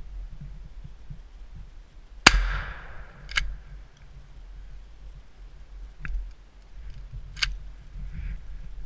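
A single shotgun shot about two seconds in, with a short echoing tail, followed by a few lighter sharp clicks.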